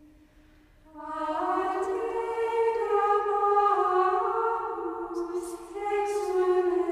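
Choir singing slow plainchant as background music, long held notes moving stepwise; the voices enter about a second in after a near-quiet moment.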